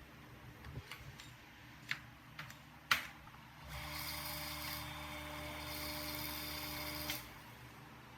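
A few sharp clicks and knocks, then a small electric motor or power tool runs steadily with a hum for about three and a half seconds and stops.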